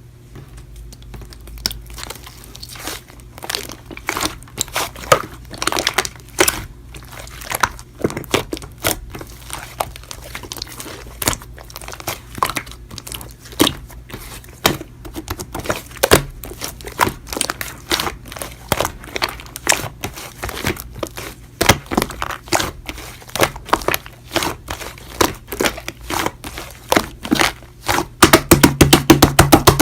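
Toy slime being squeezed, pressed and poked by hand, making irregular sticky clicks and pops, with a quick run of clicks near the end.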